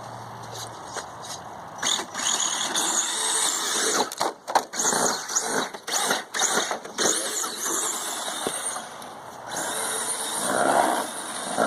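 Battery-powered RC monster truck driving hard: its electric motor whines, rising and falling with the throttle. A cluster of sharp knocks about four to seven seconds in sounds like the truck bouncing and landing.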